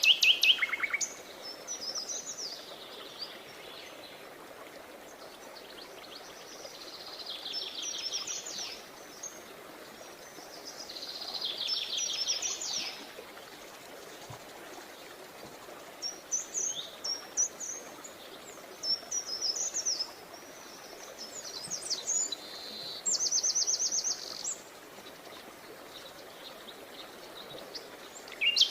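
Songbirds singing: bursts of high chirps and fast trills of rapidly repeated notes, coming in phrases a few seconds apart, over a steady background hiss.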